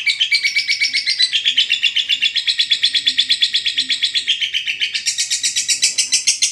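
Lovebird singing its long 'ngekek' chatter: an unbroken rapid run of shrill notes at about ten a second.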